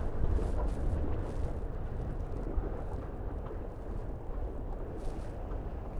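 Wind rumbling on the microphone, with water rushing past the hulls of a Tornado racing catamaran under sail; a steady low rumble and hiss.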